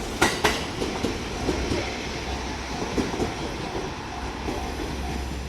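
Electric commuter train passing over a level crossing: two wheel clacks over rail joints just after the start, then a steady rolling rumble. A crossing warning bell chimes faintly about twice a second.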